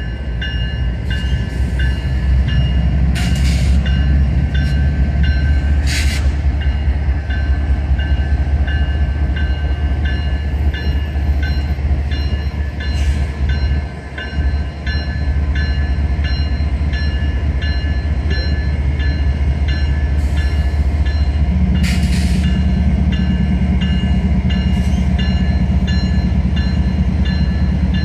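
Safetran type-3 electronic crossing bell ringing steadily, over a loud, steady low rumble. The bell is warning of an approaching train.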